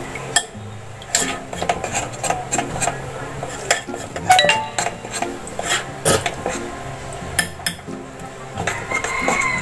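Spoon stirring a thick, stiff cake batter in a mixing bowl, with irregular clinks and knocks of the spoon against the bowl.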